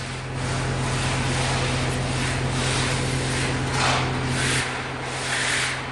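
Steady low drone of the engine-driven screed machine running, with even rapid pulsing, and a few short scrapes of semi-dry cement screed being worked by hand.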